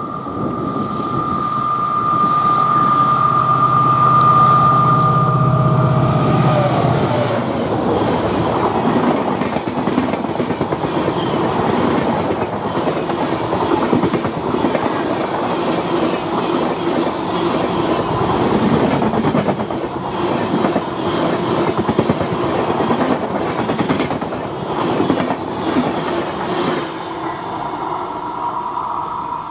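Diesel locomotive of the EMD-design WDP 4 family sounding a long, steady two-tone horn over its engine drone, the pitch dropping as it passes. Then the coaches roll by with a steady clickety-clack of wheels over rail joints.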